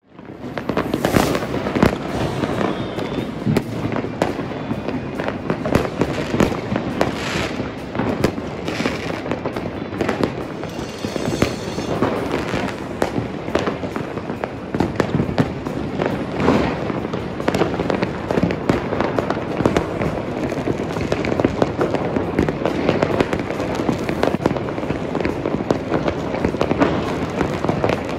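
Many fireworks going off at once across a city: a dense, unbroken barrage of overlapping bangs and pops, fading in over the first second.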